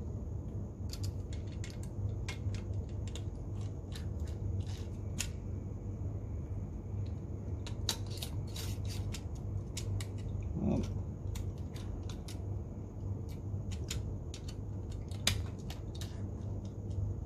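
Irregular small clicks and taps of a precision screwdriver backing out the tiny screws that hold a DJI Spark remote controller's logic board, with the screws and plastic parts being handled, over a steady low hum.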